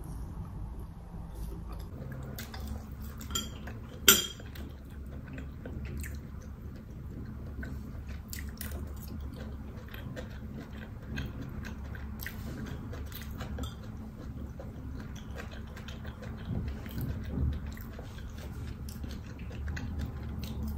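Close-up eating sounds: chewing and biting on chicken and fried rice, with a metal spoon clicking against the bowl. A sharp clink about four seconds in is the loudest sound.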